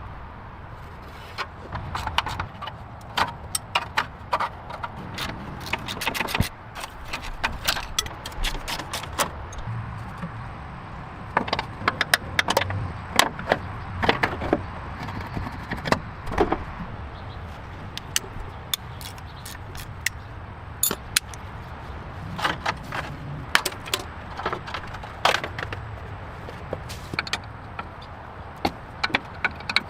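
Irregular sharp clicks and light metallic clinks of small parts or tools being handled, over a low steady hum.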